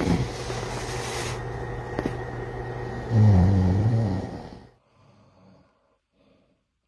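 A sleeper snoring: one long, deep snore about three seconds in, over a steady rushing background noise. Both cut off abruptly a little later, leaving near quiet with a few faint breathy sounds.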